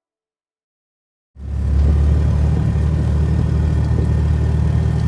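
Silence for about a second, then the old Jeep's engine cuts in suddenly and runs steadily with a low, even note.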